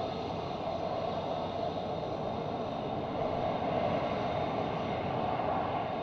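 An F-35A's jet engine running with a steady noise that swells a little about three seconds in and eases off near the end.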